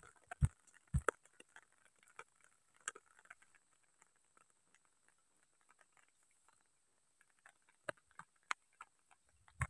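Footsteps on wet gravel and stones: a few dull knocks in the first second, then faint scattered ticks and crunches that die away to near quiet, with a few isolated clicks near the end.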